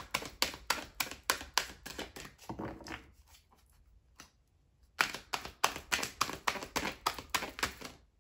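Tarot cards being shuffled by hand: quick regular taps and slaps of cards, about five a second, stopping for about two seconds in the middle.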